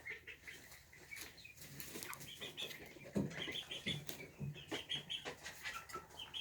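Chickens calling softly: several short runs of quick, trilling high chirps and a few low, falling clucks, with light rustling.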